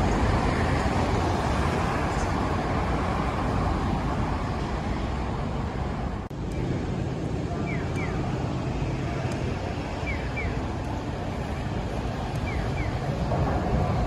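Steady city street traffic noise under an elevated railway, cutting off suddenly about six seconds in to another busy crossing. There, an electronic pedestrian-crossing signal chirps in pairs of short falling notes every couple of seconds. Near the end the noise swells as a Shinkansen train comes onto the viaduct overhead.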